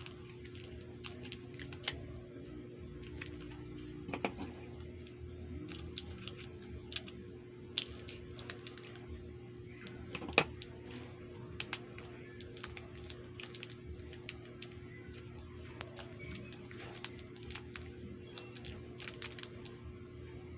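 Sugus chewy candy wrappers being handled and opened: irregular sharp crinkles and clicks, with one louder click about ten seconds in, over a steady low hum.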